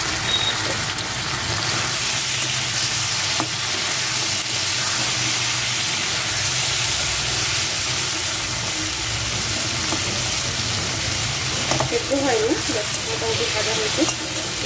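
Chopped potato, eggplant, pumpkin and gourd sizzling steadily in hot oil in an aluminium kadai. A steel spatula stirs them now and then, scraping and clicking against the pan.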